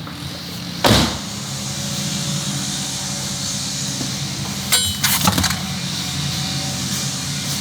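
Steady low hum of a running vehicle, heard as if from inside it, with a single knock about a second in and a few clicks and a brief rattle about five seconds in.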